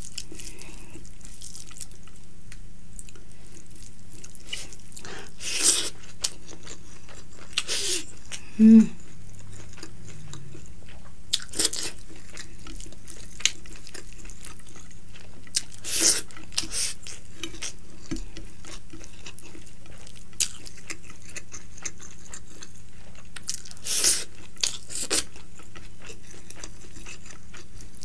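Close-miked eating: a person chewing mouthfuls of rice and curry eaten by hand, with short, irregular mouth and hand sounds spaced a few seconds apart over a steady low hum. A brief low hum-like sound comes about nine seconds in.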